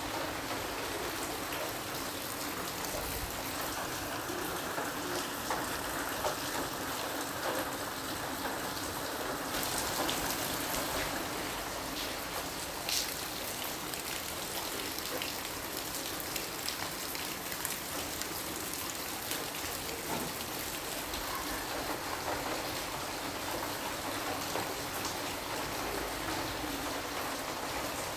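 Steady rain falling, an even hiss with many small scattered drop ticks and the occasional louder drop.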